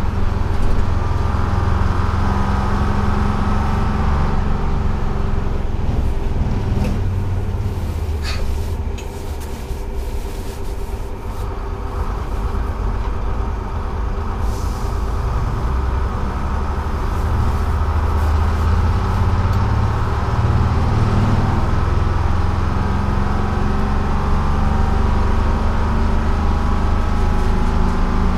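A 1948 GMC Silversides bus's Detroit Diesel 6-71 two-stroke diesel running on the road, heard from inside the cab. The engine note eases off about nine seconds in and builds again from about seventeen seconds, with a few short clicks around four and eight seconds in.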